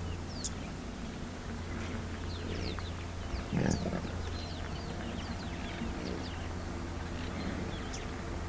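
A young African bush elephant splashing in shallow river water, loudest once about three and a half seconds in. Many small birds chirp throughout, over a steady low hum.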